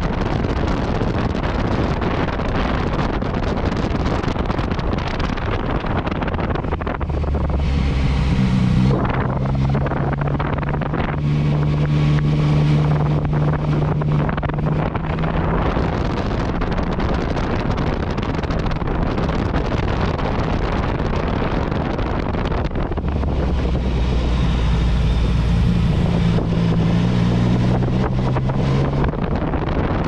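Yamaha MT-09 Tracer motorcycle riding along, its three-cylinder engine running under heavy wind rush on the microphone. Twice, about a third of the way in and again near the end, the wind eases and the engine's low steady hum comes through more plainly.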